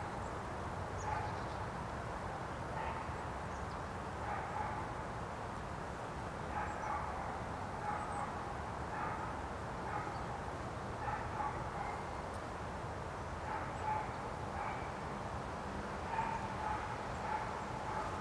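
An animal's short calls, repeated irregularly about once a second, over a steady low rumble.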